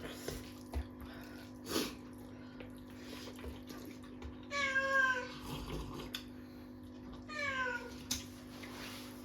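A pet cat meowing twice, each meow falling in pitch and under a second long, about five seconds in and again about seven and a half seconds in, over a steady low hum.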